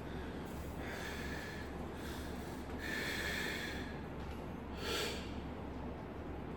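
A man breathing hard in three forceful breaths, one about every two seconds, while he works through a set of bodyweight dips.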